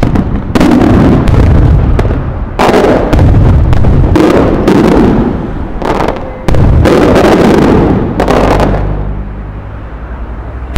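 Aerial fireworks shells bursting in quick succession: a run of about four loud blasts, each followed by a second or so of crackling and rumble, dying away near the end.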